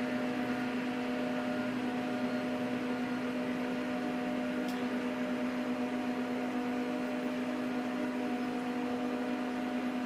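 Dell PowerEdge R710 rack server running with a steady fan hum: one strong low tone with several fainter higher tones over an even whoosh. A faint tick comes about halfway through.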